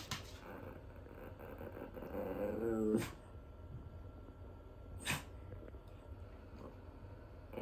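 Small Maltese–Shih Tzu mix dog giving a brief low grumble about two seconds in, ending in a sharp click, with another single click a couple of seconds later.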